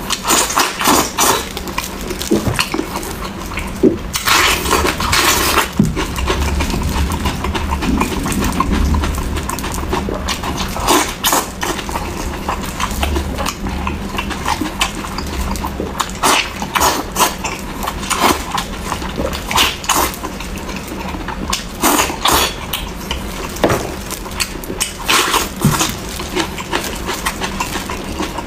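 Close-miked eating of sticky, sauce-coated braised pork ribs: wet chewing, lip-smacking and sucking as the meat is gnawed off the bone, with a steady run of irregular sharp clicks and squelches.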